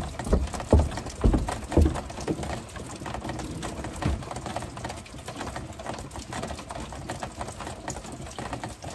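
Rain pattering on the patio overhead and dripping through, a dense crackle of small drops. In the first few seconds there is a run of about six dull low thuds, about half a second apart.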